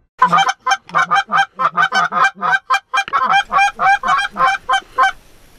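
Goose honking: a rapid, even run of about twenty honks, about four a second.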